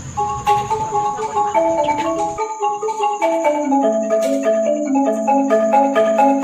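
Music of tuned mallet percussion playing quick runs of short ringing notes. A low background rumble underneath stops abruptly about two seconds in.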